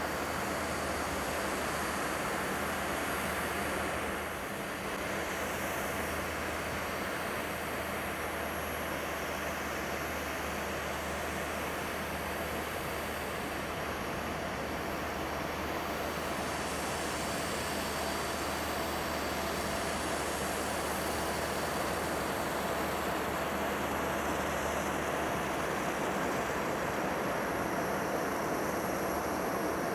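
Boeing 767-300ER's jet engines running steadily: a continuous rushing roar with faint steady whine tones, growing slightly louder toward the end.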